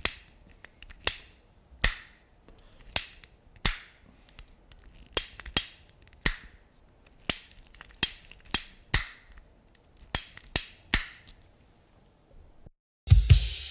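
Lighters being struck again and again: sharp clicks at irregular intervals, some in quick pairs, each followed by a brief fading hiss. They stop about 11 seconds in, and music with drums starts near the end.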